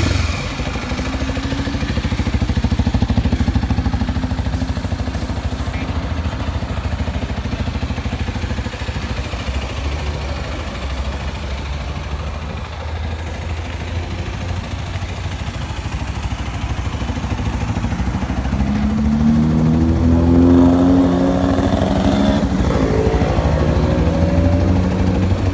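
Kawasaki Z250SL single-cylinder motorcycle engine, fitted with a modified airbox and exhaust, idling with a steady beat. Near the end it is revved up once and eased back down. Its modified intake and exhaust give it a note its owner likens to a twin-cylinder.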